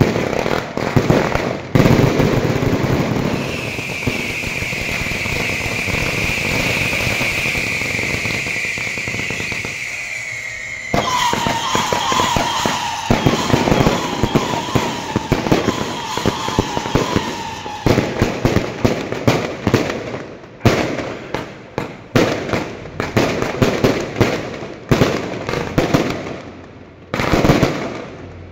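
Fireworks and firecrackers going off in dense crackling volleys. A long high whistle sounds over the crackle, then a lower whistle that slowly falls in pitch, and the second half turns into a rapid, irregular run of separate sharp bangs.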